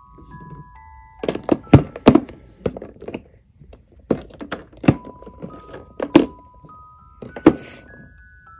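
Plastic bottles, tubes and jars of baby-care products being set down and shuffled in a wooden dresser drawer: a string of irregular knocks and clunks, several of them, the loudest about two seconds in.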